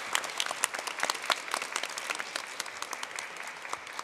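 Audience applauding, many hands clapping together, thinning out slightly near the end.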